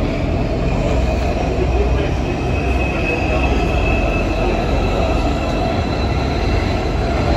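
Inside a C14 metro car on the move: a steady rumble of wheels on the rails, with a high-pitched squeal or whine that comes in about two seconds in and holds to the end.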